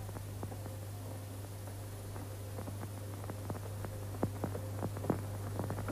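Footsteps on a hard floor, faint at first and louder near the end at about two steps a second, over the steady low hum and crackle of an old film soundtrack.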